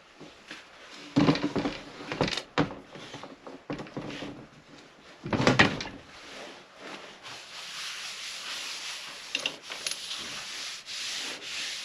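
Paper towels wiping and rubbing spilled oil off a metal bench top, with a few knocks and clunks in the first half and steady rubbing through the second.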